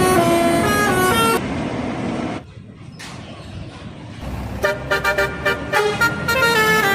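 Indonesian bus 'telolet' multi-tone musical air horn playing a stepping melody that cuts off suddenly about a second and a half in. After a quieter stretch of traffic noise, a telolet horn sounds again from about four and a half seconds in as a run of quick repeated toots.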